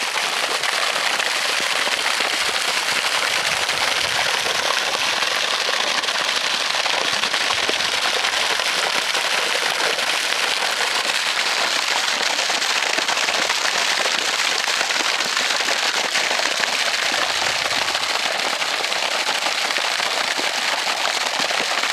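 Water from a pond-aeration pump jet falling back into an open hole in the pond ice, a steady splashing on the water surface that churns it to keep it oxygenated under the ice.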